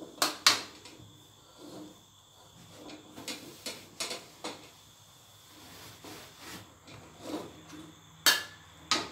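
Metal spatula scraping and clanking against a metal wok as the stir-fry is stirred and scooped, with sharp clanks every second or so, loudest twice near the start and twice near the end.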